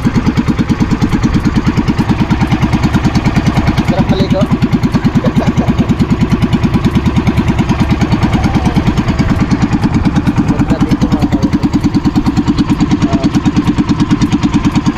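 Engine of a motorized bangka (outrigger boat) running steadily under way, a loud, fast, even chugging.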